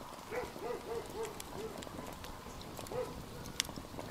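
Open wood fire crackling with scattered sharp pops, the loudest about three and a half seconds in, alongside a run of short, low, rising-and-falling sounds, several close together early and one more near 3 seconds.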